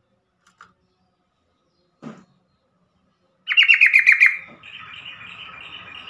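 Yellow-vented bulbul (trucukan) giving a loud, rapid chattering burst of about eight notes about three and a half seconds in, followed by softer fast repeated notes over a steady hiss. A single soft knock sounds about two seconds in.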